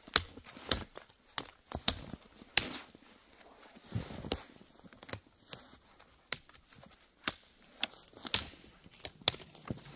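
Dry dead twigs and branches snapping as they are broken off and gathered for kindling, a string of sharp irregular cracks with rustling between them, mixed with footsteps in snow.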